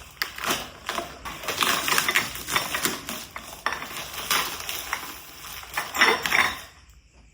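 Cups from a dinner set being unpacked and handled: irregular clinks and knocks of dishware against each other and the packaging.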